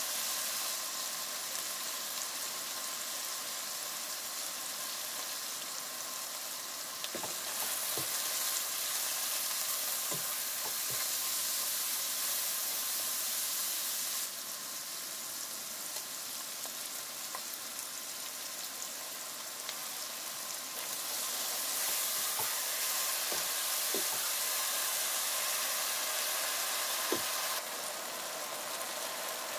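Food frying in hot oil, sizzling steadily, with a few faint clicks. The sizzle steps louder and softer a few times.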